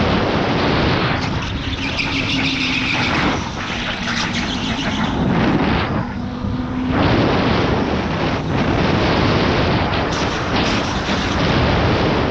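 Electric go-kart driven at speed: loud, continuous wind buffeting and tyre and chassis rumble, with the electric motor's whine showing through twice.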